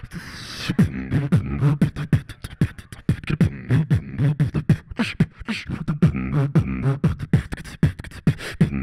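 Solo beatboxing amplified through a handheld microphone: fast mouth-made kick, snare and hi-hat hits over a pitched, gliding vocal bass line.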